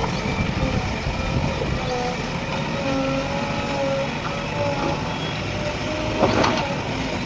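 JCB 3DX Plus backhoe loader's diesel engine running steadily while it works, with wavering tones above the engine noise and a short loud clatter about six seconds in.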